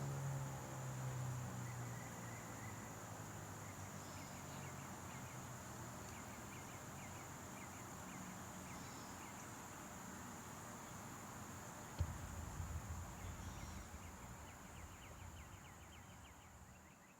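The tail of a Federal Signal 2001-130 rotating siren winding down, its falling pitch and low hum fading out in the first couple of seconds. Insects go on buzzing and chirping, with a steady high whine and fast ticking. A single knock comes about twelve seconds in, followed by a low rumble.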